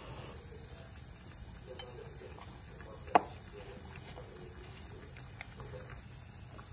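Faint scattered ticks and small pops from cooking cream heating in a nonstick frying pan, with one sharp click about three seconds in.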